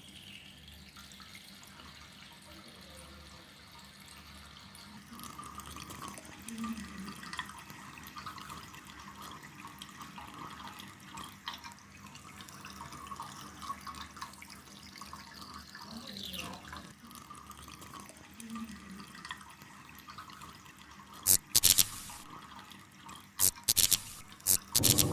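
Faint running or dripping water, like a tap into a sink. A few sharp, loud clicks come in two clusters near the end.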